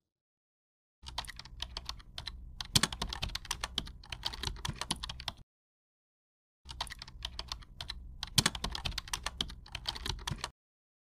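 Keyboard typing sound effect: rapid key clicks in two runs of about four seconds each, the first starting about a second in, the second after a silent gap of about a second.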